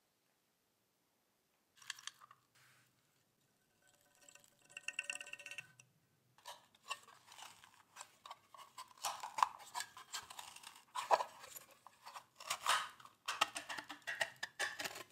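Small steel parts clicking, scraping and rattling under hand work, irregular and busy from about six seconds in. A few seconds earlier there is a brief buzzing tone.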